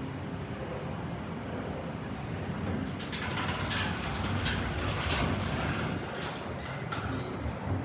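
Hydraulic elevator cab in motion: a steady low hum throughout, with a louder, hissing stretch carrying short clicks and rattles for a few seconds in the middle.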